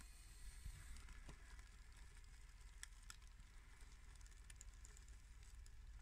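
Near silence: a faint steady low rumble with a few faint ticks.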